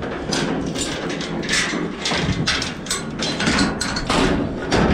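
Metal clanking and rattling of a livestock trailer's gate latch and chain, struck and rattled over and over as the gate is fastened shut.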